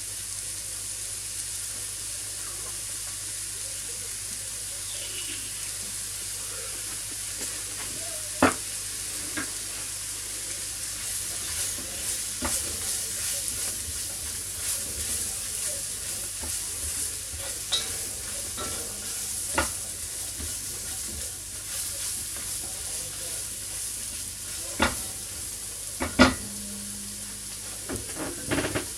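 Vegetables and curry spices frying with a steady sizzle in a Dutch oven, stirred with a utensil that knocks against the pot every few seconds, the loudest knock about 26 seconds in.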